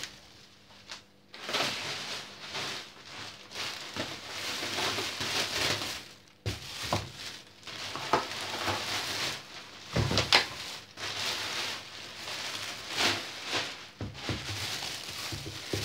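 Thin plastic shopping bag rustling and crinkling as it is handled, in irregular bursts.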